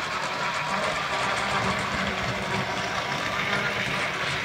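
Tyco HO-scale model train running steadily around a loop of track laid on a bare plywood board: the locomotive's small electric motor whirring and the wheels rattling on the rails.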